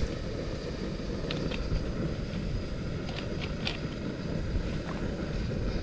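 Strong wind buffeting the microphone: a steady, uneven low rumble, with a few faint ticks about a second in and again around three seconds in.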